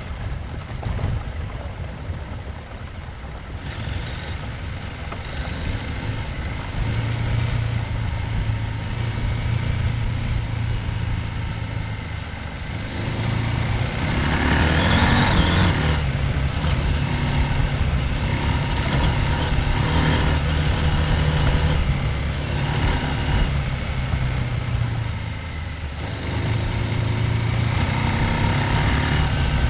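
Husqvarna Norden 901's parallel-twin engine running at low revs, its note rising and falling with the throttle. About halfway through it gets louder for a couple of seconds with a brief rising note, then settles back to a steady run.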